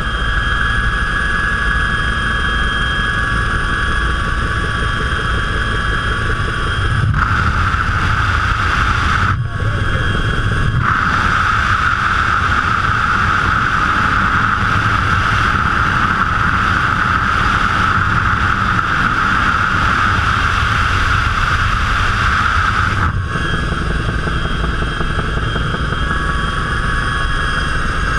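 Aircraft engine drone and rushing air at the open jump door, heard from inside the cabin of the jump plane in flight. The noise is loud and steady, growing fuller and louder from about seven seconds in until a few seconds before the end.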